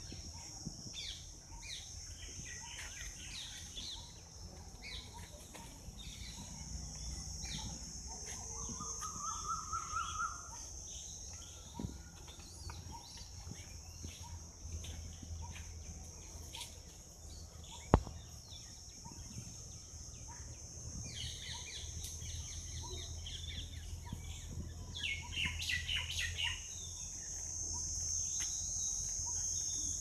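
Birds chirping over a steady high-pitched insect drone, with one longer call about a third of the way in and busier chirping in the last third. A single sharp click sounds a little past halfway.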